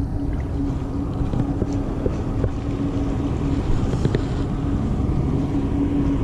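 A boat motor running steadily with a constant low hum, with wind rumbling on the microphone.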